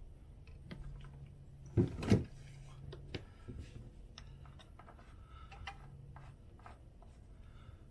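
Scattered small clicks and light knocks of handling while a gas RC truck's fuel tank is filled, with a short louder pitched sound about two seconds in, over a steady low hum.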